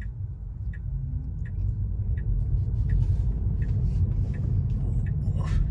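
Low road and tyre rumble inside the cabin of a Tesla Model 3 electric car as it pulls away and speeds up, growing louder about two seconds in. Faint regular ticking sounds over it.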